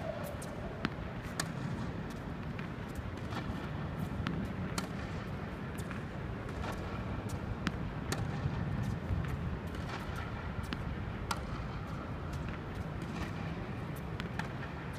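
Tennis balls being struck and bouncing on a court: sharp, irregular pops every second or so over a steady low rumble of outdoor noise.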